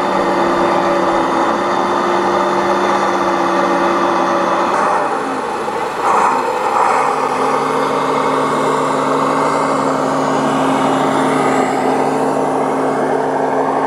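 Simulated big-rig diesel engine sound from a scale RC semi-truck's sound module, running steadily; the engine note changes to a different, lower-set pitch partway through.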